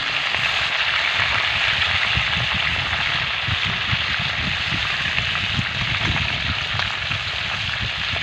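Pieces of fish deep-frying in hot oil in a two-handled wok (karahi): a steady, dense sizzle with fine crackling.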